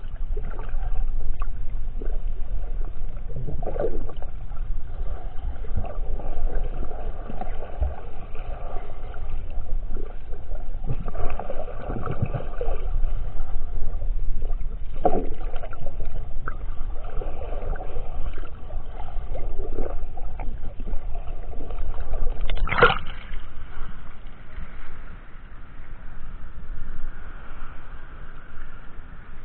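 Muffled water noise recorded by a handheld camera held underwater as the swimmer moves: a steady low rumble with repeated swishes of water and one sharp knock about 23 seconds in. The sound grows quieter for the last few seconds.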